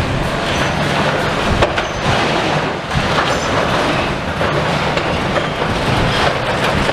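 Demolition excavator clearing rubble: its engine running steadily under repeated clanking and scraping of debris, with wind buffeting the microphone.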